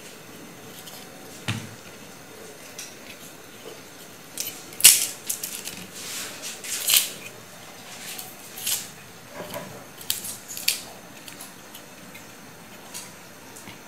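Garlic cloves being peeled with a small knife: dry papery skins crackling and the blade scraping, in irregular short scratches and clicks, the loudest about five and seven seconds in.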